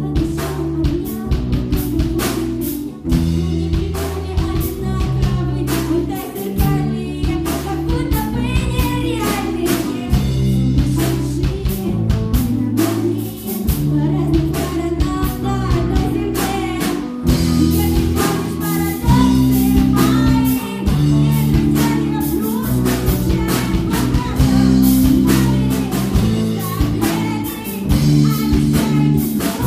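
Live band playing a song, drum kit and electric guitar under a female voice singing into a microphone.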